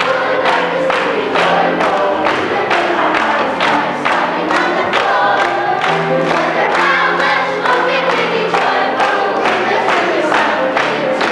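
A large group of amateur stage performers singing together to music with a steady beat, about three beats a second.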